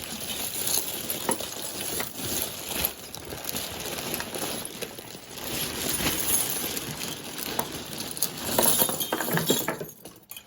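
A tangled mass of jewelry being pulled and shaken, chains, beads and metal pieces clinking and jangling against each other, with louder clatters near the end.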